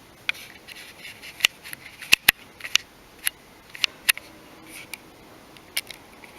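Irregular sharp clicks and ticks of a small screwdriver working a tiny screw out of a smartphone's plastic frame, about a dozen in all, the loudest around two seconds in.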